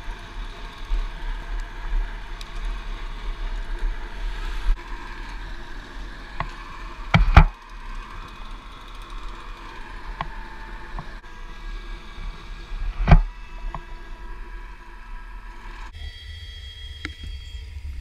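Mobile crane's diesel engine running steadily as it hoists a climber on its hook, with two loud knocks, about seven and thirteen seconds in, and a few fainter clicks.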